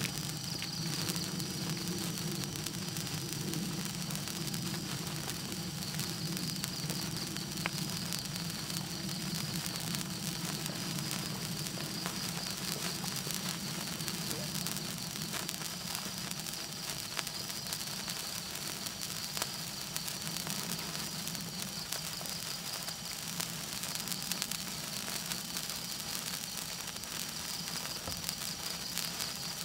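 Gold wire sparkler burning, a steady fizzing hiss dotted with many small sharp crackles as sparks burst off it.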